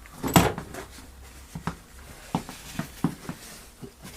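Small clicks and knocks of hand tools and parts being handled and set down, with one louder knock about half a second in, followed by about seven lighter taps.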